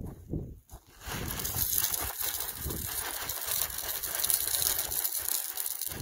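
Crushed concrete gravel pouring out of a plastic five-gallon bucket onto the ground in a steady crackling stream, starting about a second in. Before it, a few heavy footsteps crunch on the gravel.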